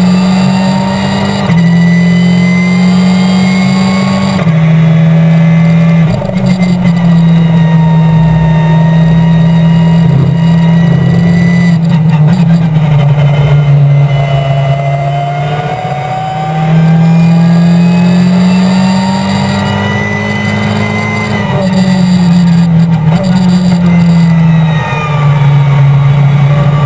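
Race car engine heard from inside the cockpit, running hard through a lap: the engine note climbs under acceleration and drops in steps with gear changes several times.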